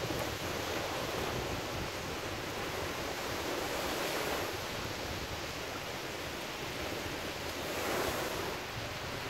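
Small ocean waves breaking and washing up on a sandy beach, a steady surf wash that swells about four seconds in and again near the end as waves break.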